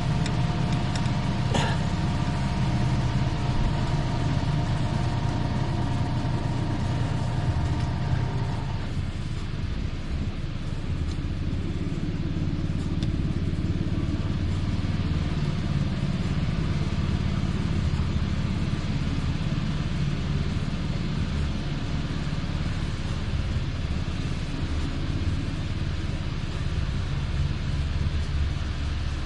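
A small gasoline engine running steadily at a low, even speed. A thin whine over it stops about nine seconds in.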